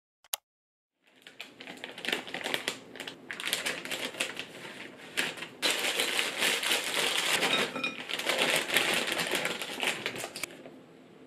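Crinkling plastic bag of edamame being handled and tipped out, the pods clattering in a dense crackle onto a metal plate, loudest in the middle and fading out near the end. A single sharp click comes just after the start.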